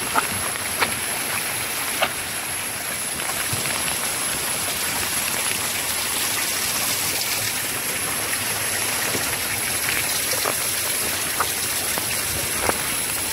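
Steady rain falling, with a few sharp ticks scattered through it.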